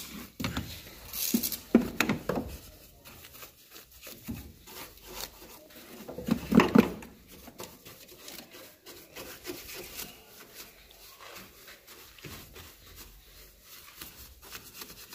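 Bristle detail brush scrubbing degreaser foam over engine-bay parts: an irregular run of scratchy rubbing strokes, with louder knocks about two seconds in and near the middle.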